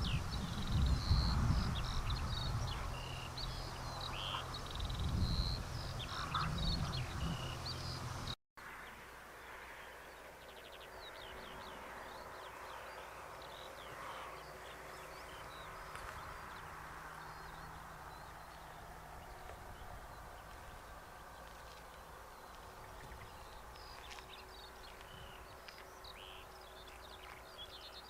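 Wild songbirds chirping and singing in many short, high calls over a low rumble. About eight seconds in, the sound cuts off abruptly and picks up again quieter, with fainter, sparser birdsong over a steady low hum.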